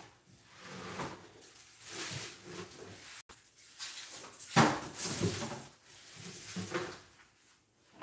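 A dog barking now and then, mixed with scattered knocks like a door or cupboard; the loudest bark comes about halfway through.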